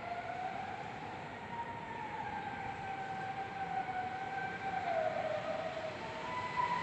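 A distant, long, eerie moaning tone that sounds like a whale. It holds one pitch that slowly wavers up and down, dipping about five seconds in and rising again near the end, over a rushing background noise. Its source is unidentified.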